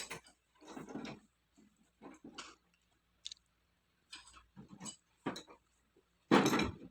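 Irregular knocks and clicks spaced with short gaps, with a louder, longer clatter near the end.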